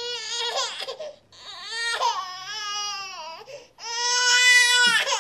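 Infant crying: three long, high-pitched wails with short breaths between them, the last one the loudest.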